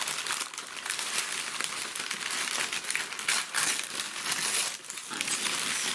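Brown kraft wrapping paper and white tissue paper crumpling and crackling as they are pulled off a mail-order plant by hand, a continuous crackle with a brief lull about five seconds in.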